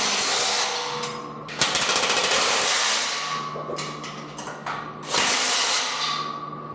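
Power driver running in three bursts of about a second and a half each, driving bolts into the rack frame.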